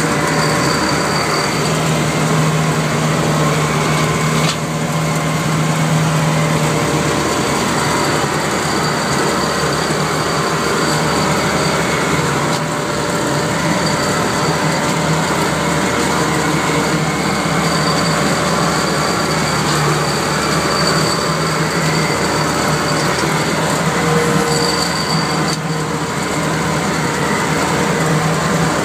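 Aebi TT95 slope mower running steadily under load while cutting tall dry reeds and grass: a constant engine and cutter drone with a thin high whine that comes and goes.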